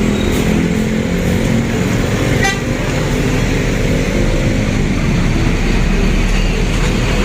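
Bus engine running amid road traffic, with a horn tooting, steady and loud throughout.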